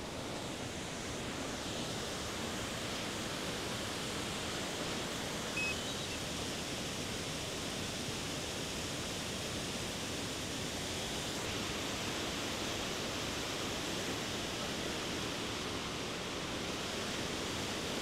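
Steady rushing roar of a waterfall, an even wash of water noise with no rise or fall. A brief faint high chirp sounds about five and a half seconds in.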